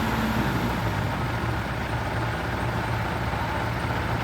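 Engine of a heavy construction vehicle running steadily, with a low, even throb.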